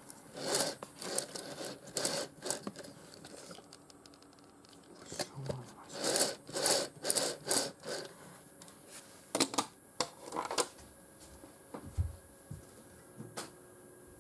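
Irregular short bursts of rubbing and scraping, clustered in a few groups, over a faint steady high-pitched whine.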